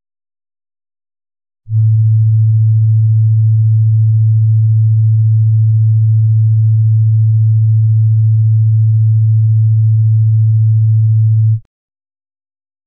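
A pure sine-wave tone at A2 (110 Hz), one steady low pitch that starts about two seconds in, holds for about ten seconds and then cuts off.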